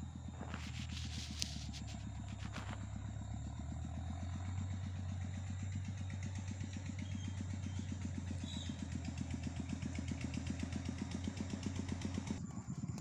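A small engine running steadily, a low, evenly pulsing drone that eases off near the end. A few sharp clicks come in the first three seconds.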